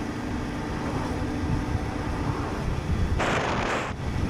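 Motorcycle on the move: a steady low engine rumble with wind buffeting the helmet microphone, and a short rush of hiss about three seconds in.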